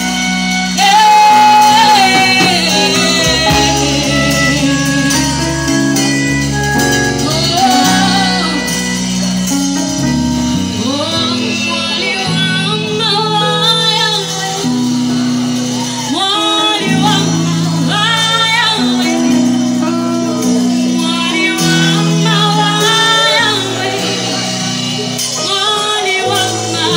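Live gospel praise-and-worship music from a band with keyboard, electric guitars and drums. Held chords and bass notes run throughout, and a woman sings through a microphone over them, her voice more prominent from about halfway through.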